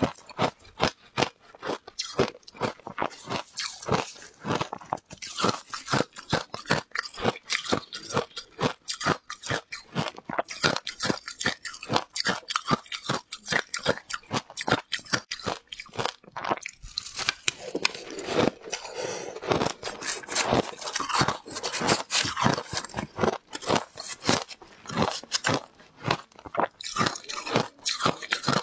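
Shaved ice being crunched and chewed in the mouth: a steady run of crisp crunches, several a second, without a break.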